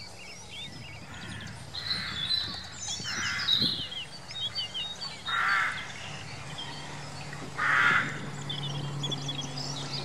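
Seabird colony calling: four harsh, cawing calls spaced a couple of seconds apart, over a chatter of many short high chirps.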